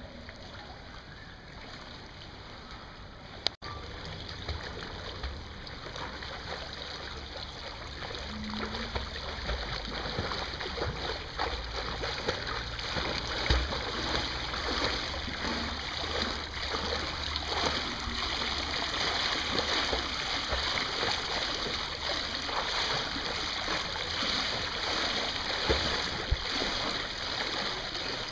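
Pool water splashing and swishing under a swimmer's steady kicks and strokes, heard close to the water surface. The sound breaks off briefly a few seconds in, then grows louder.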